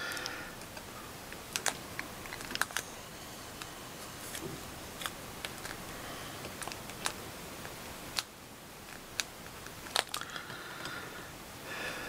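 Quiet close handling sounds: scattered sharp little clicks and taps, irregular and a second or so apart, as fingers press and tuck thin strands of raw polymer clay onto a small nest form on a work board.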